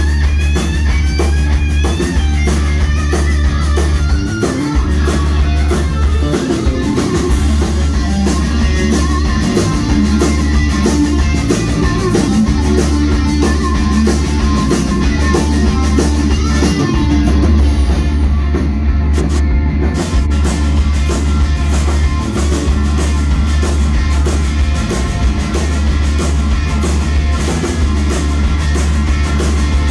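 Live blues-rock band: a Stratocaster-style electric guitar playing lead lines over bass guitar and a drum kit.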